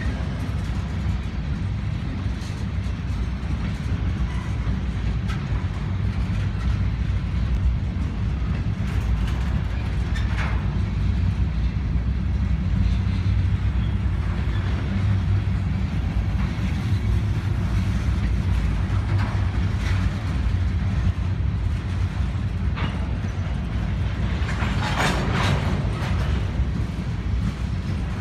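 Freight train of covered hopper and tank cars rolling past at steady speed, a continuous low rumble of wheels on rail. Brief higher-pitched noises from the passing cars come about ten seconds in and again near the end.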